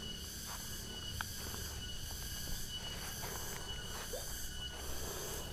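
Quiet rural outdoor ambience: a steady high-pitched hiss with a faint steady tone through it, and a few faint ticks.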